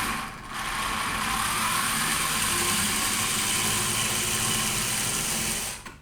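Old Black & Decker slow, high-torque powered screwdriver running steadily for about five seconds, turning out a tight flathead outlet screw. It starts with a click and runs down just before the end.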